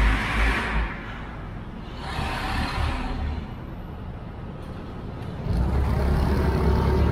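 Road traffic at an intersection: vehicles go by twice in the first three seconds. About five and a half seconds in, a louder low engine rumble sets in as the motorcycle moves off on the green.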